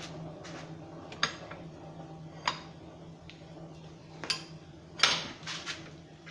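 About six sharp metal clinks and taps, irregularly spaced, as a steel tool works a red-hot quarter-inch steel rod knot clamped in a bench vise. The loudest comes about five seconds in. A steady low hum runs underneath.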